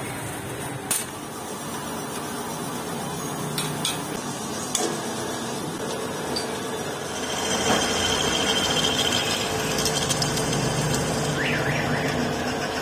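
Drill press running, its twist bit cutting into a threaded boss on an engine casing to drill out the stripped thread: from about seven seconds in the drilling grows louder, with a high steady whine and a couple of short squeals. A few sharp clicks come earlier.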